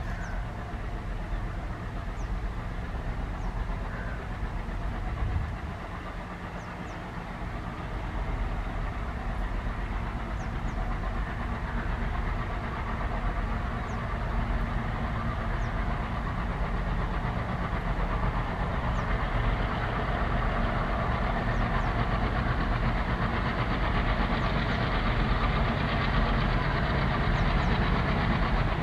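Diesel locomotive hauling a freight train, its engine running with a steady low drone that grows gradually louder as the train approaches.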